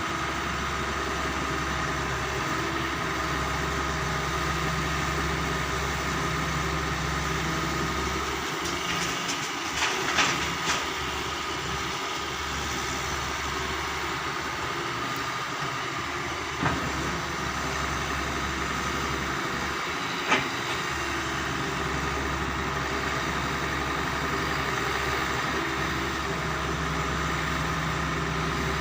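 Doosan 140 wheel excavator's diesel engine running steadily, its low note thinning out for a stretch in the middle, with a few sharp knocks, the loudest about ten and twenty seconds in.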